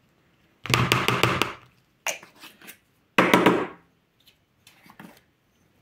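Small glass spice jar of paprika powder being rapped and shaken to get stuck powder out: a quick run of about six sharp taps about a second in, then a few more knocks.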